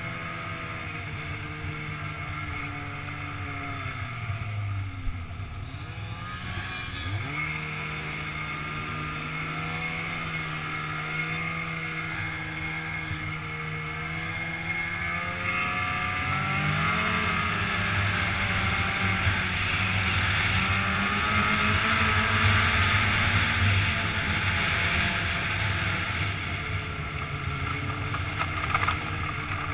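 Polaris snowmobile engine running as the sled travels along the trail. Its pitch drops about five seconds in and picks back up, then rises and gets louder from about halfway through as the rider speeds up.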